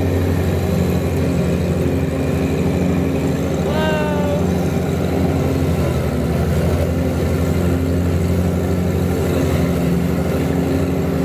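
John Deere riding lawn tractor's engine running steadily as it drives over rough grass. A short falling pitched sound is heard about four seconds in.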